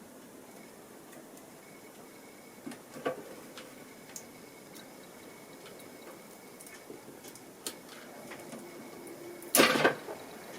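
Light clicks and taps of small tools and parts being handled during a phone battery removal, with one louder, brief scrape about nine and a half seconds in.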